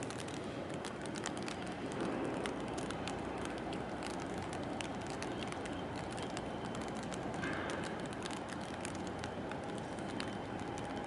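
Steady outdoor harbour ambience: an even wash of background noise with scattered faint clicks and ticks, and no single event standing out.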